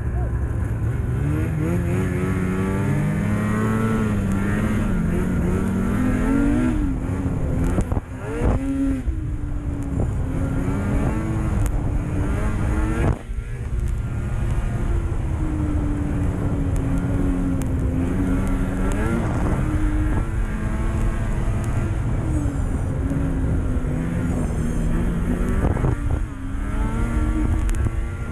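Snowmobile's 800cc two-stroke engine running under throttle on a trail, its revs rising and falling again and again. The throttle is briefly let off a few times, the engine note dropping before it picks up again.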